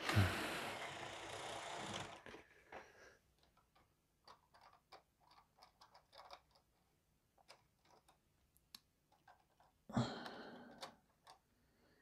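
Hornby TT:120 model train running with a derailed coach rattling and scraping on the track, cut off about two seconds in. Then small plastic clicks and taps as the coaches are handled and set back on the rails, with a brief louder knock about ten seconds in.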